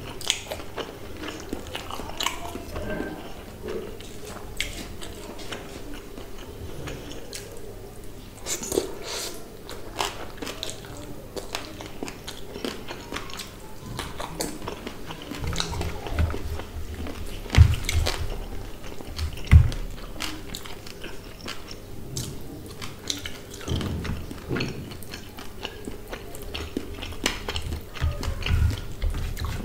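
Close-up wet chewing and biting of a mouthful of fish curry and rice, with lip smacks and soft clicks, and the squelch of fingers mixing rice into curry on a steel plate.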